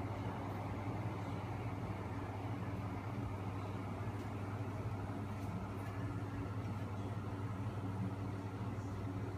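Homemade magnet engine running: a small 12 V electric motor turning its crankshafts, heavy flywheels and rubber drive wheels, with a steady low hum and whir.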